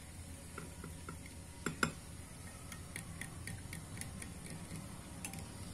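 A metal fork stirring garlic sauce in a glass bowl: light, scattered ticks of metal on glass, with two louder clinks a little under two seconds in.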